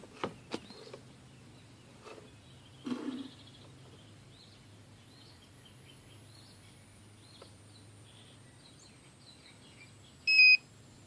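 A short, loud electronic beep from a handheld OBD-II code reader near the end, over the faint steady hum of the idling engine. Faint bird chirps and a few soft clicks lie underneath.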